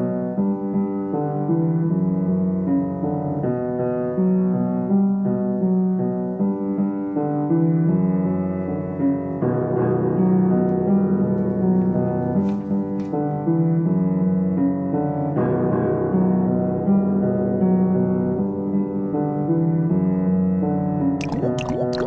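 Background piano music with a repeating low melody, ending with a short rushing transition sound.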